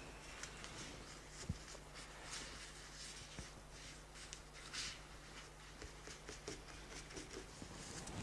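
Very faint painting work in a quiet room: scattered light taps and a few brief soft swishes of brush, paper or a spray of water, one clearer about five seconds in.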